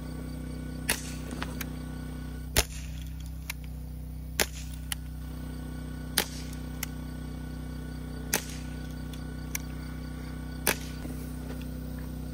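Air gun shots: six sharp cracks about two seconds apart, each followed by a fainter tick, over a steady low hum.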